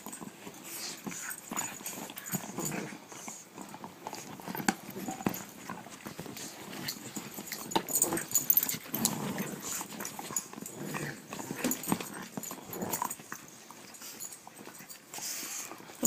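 Pug puppies and a larger dog play-fighting: irregular scuffling with short dog sounds. The sounds are loudest about eight to nine seconds in.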